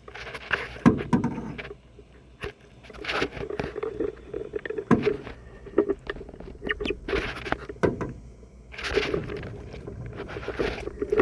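Canoe paddles dipping and pulling through the water in irregular strokes, each a short swish, with a few light knocks in the first couple of seconds.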